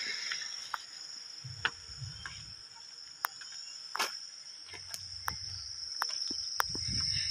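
Steady high-pitched drone of insects, with soft footsteps on a dirt path and scattered sharp clicks.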